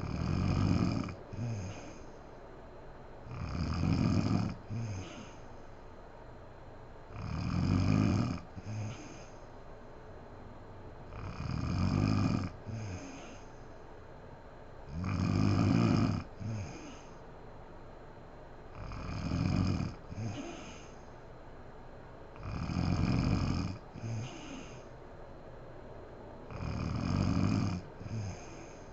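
A sleeping woman snoring in a steady rhythm: eight snores about four seconds apart, each about a second and a half long and followed by a shorter, fainter breath sound.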